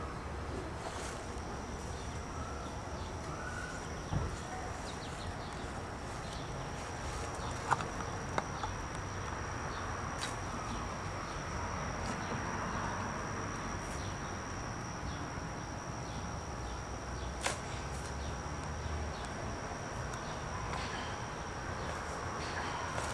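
Insects trilling in one steady high note, with a few sharp knocks scattered through, the loudest about 8 seconds in.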